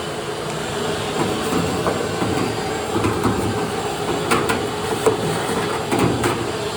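Vacuum cleaner running steadily, sucking built-up lint out of a GE dryer's blower fan housing; the lint had unbalanced the fan and caused a vibrating rattle. Several sharp clicks and knocks come through in the second half.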